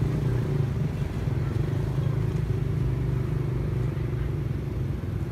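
An engine running steadily, a low even hum.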